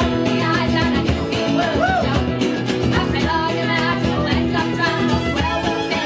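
Live band playing an instrumental passage: strummed acoustic guitars with electric guitar and a bowed fiddle, running steadily without a break.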